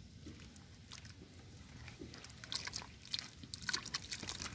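Shallow muddy water splashing and squelching as it runs down a dug mud channel into a hole, with irregular wet crackles that grow busier and louder from about halfway in.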